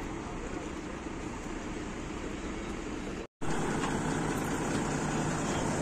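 Steady engine and road noise of a moving bus. It breaks off for a moment a little after three seconds in and comes back slightly louder.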